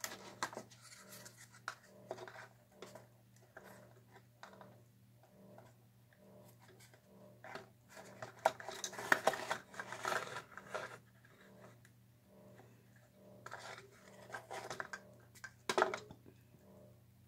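Plastic paint cups and bottles being handled and set down on a metal wire rack: scattered clicks, taps and scrapes, busiest in the middle, with a sharp knock near the end. A low steady hum runs underneath.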